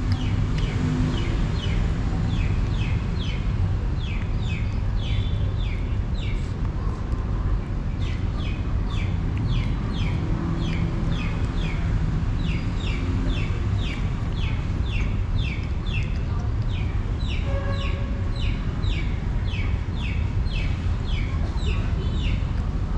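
Cat chewing wet food, a quick rhythmic smacking about two to three times a second with short pauses, over a steady low background rumble.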